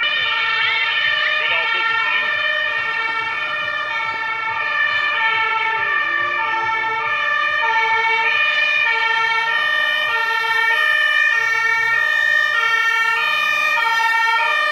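German two-tone emergency siren (Martinshorn) on a Mercedes TLF 16/25 fire tender, switching steadily back and forth between a high and a low note and growing louder as the truck approaches.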